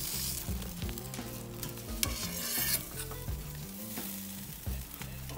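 Whole sea bass sizzling on a hot oiled soapstone, with metal spatula and tongs scraping and clicking as the fish is lifted off the stone and set on the grill grate.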